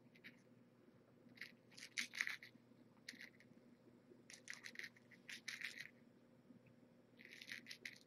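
Faint quick scratchy strokes on a kitten's fur, coming in four short runs.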